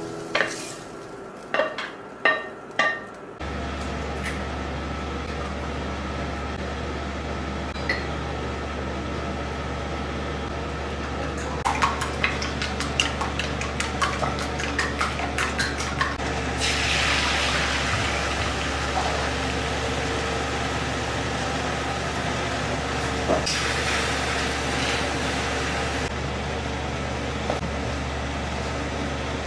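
A spatula scrapes and knocks against a frying pan a few times as food is pushed out of it. Chopsticks then click quickly against a stainless steel bowl while beating eggs, followed by a hiss of eggs sizzling in the hot pan. A steady low hum runs underneath from a few seconds in.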